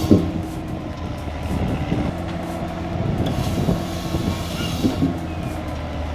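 Heavy logging machine's engine running steadily, with a few short knocks or clanks over it.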